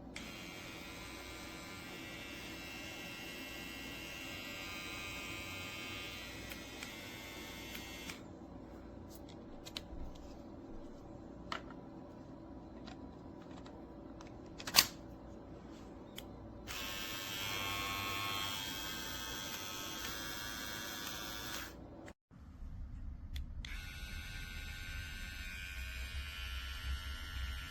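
Cordless beard trimmer motor buzzing steadily in several separate runs, with the sound changing between stretches. There is a sharp click about halfway through.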